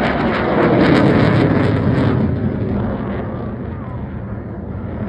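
Eurofighter Typhoon jet fighter passing with its twin Eurojet engines loud and crackling, then fading away over the last few seconds.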